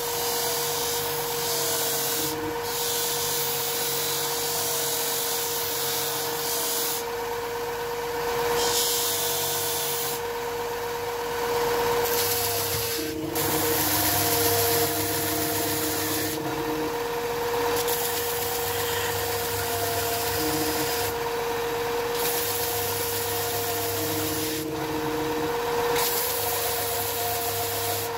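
Combination belt-and-disc sander running with a steady motor hum, the rasp of wood on abrasive swelling and easing as small thin wood pieces are pressed to the disc and then the belt.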